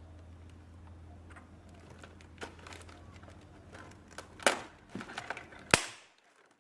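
Light handling clicks and taps, then a few sharp metal strikes in the second half, the loudest near the end: a centre punch marking a hole centre on sheet metal.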